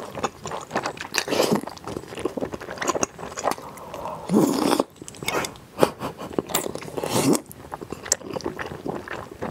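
Close-up eating sounds: slurping in and biting wide glass-noodle sheets from a chilled pigs' feet salad, with moist chewing and some crunching. The sounds come in irregular bursts, with louder slurps about four and a half seconds in and around seven seconds.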